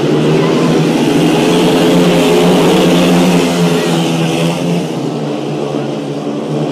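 Speedway motorcycles racing round the track, their 500cc single-cylinder engines running hard at full throttle. The engine noise swells to a peak two to three seconds in as the bikes come round, then eases off.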